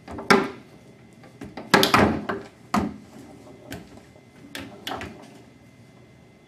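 Foosball table in play: sharp clacks of the hard ball against the plastic men and the table walls, with rods knocking, at irregular intervals. The loudest hits come as a quick cluster just under two seconds in.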